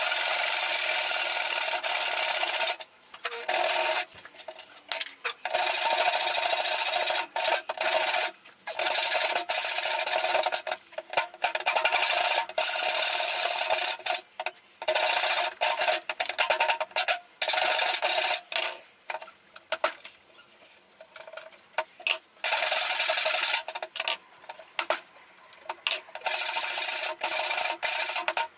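Hand rasp and file scraping across a wooden axe handle, shaping it: rapid back-and-forth rasping strokes in runs broken by short pauses, fainter for a few seconds past the middle.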